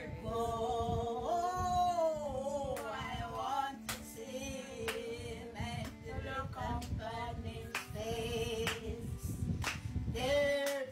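An elderly woman and a boy singing a gospel hymn unaccompanied, with hand claps now and then.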